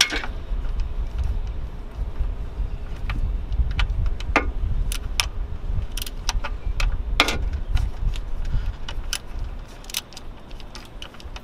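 A 16 mm wrench clicking and scraping on the oil pan drain bolt as it is worked loose: scattered sharp metallic clicks over a steady low rumble.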